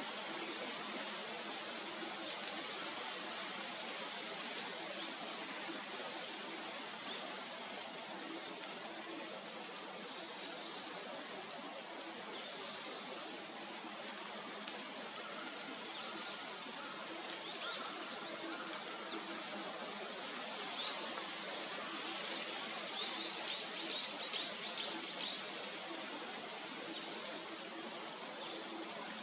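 Small forest birds calling: many short, high, thin calls scattered throughout, with a busier run of quick calls about three-quarters of the way through, over a steady background hiss.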